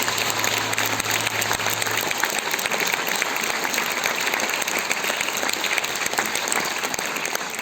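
Concert audience applauding, a dense steady clapping, after the song ends. The song's last low note dies away about two seconds in.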